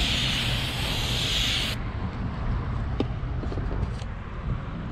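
Aerosol brake cleaner spraying onto a steel flywheel in a steady hiss that cuts off abruptly a little under two seconds in. A few light clicks follow, over a low rumble.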